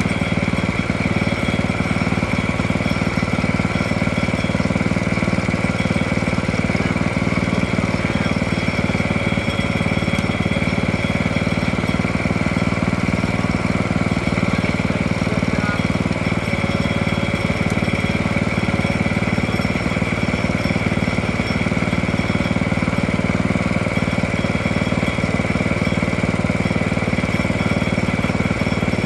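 A sawmill's engine running loud and steady at a constant speed, with no revving or change.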